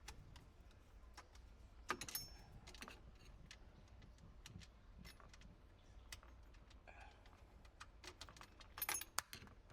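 Scattered small clicks and metal clinks of tools and fittings being handled while a kitchen garbage disposal is taken apart under the sink. A louder cluster of clinks, with a brief high ring, comes about two seconds in and again just before the end.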